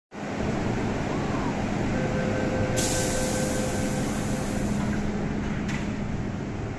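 Hong Kong MTR M-train standing at an underground platform with a steady hum while its doors close: a two-note warning tone sounds for about three seconds, a high hiss joins it partway through, and a single clunk near the end marks the doors shutting.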